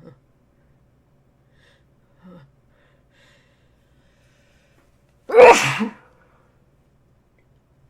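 A person sneezes once, loudly, about five seconds in, after a couple of faint short sounds.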